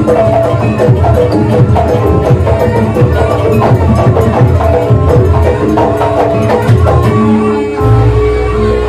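Live Javanese jaranan accompaniment: loud percussion music with drums and tuned struck instruments playing a fast, busy rhythm. Near the end the strikes thin out and a steady held note with a low hum comes in.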